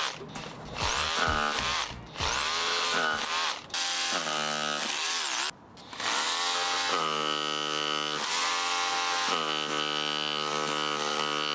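Makita BHR241 18V cordless SDS Plus rotary hammer drill running into concrete. It starts with several short trigger bursts that rise and fall in pitch, then runs steadily in longer stretches, with a brief stop about halfway through.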